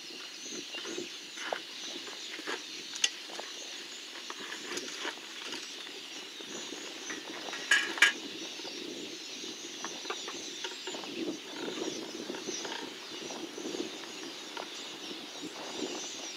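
Outdoor bush ambience: faint bird chirping over a steady hiss, with scattered soft knocks and a sharper double click about eight seconds in.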